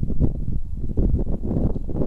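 Wind buffeting the microphone: a gusty, uneven low rumble.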